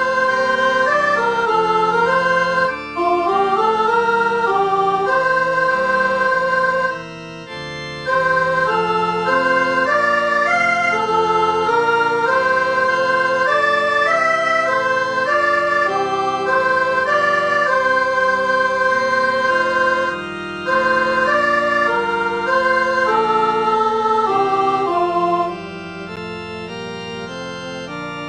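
Computer notation-software playback of a choral score with organ accompaniment, the voice parts rendered as synthetic organ-like tones: a melodic line moves over held chords, with short breaks between phrases. The level drops about 25 seconds in.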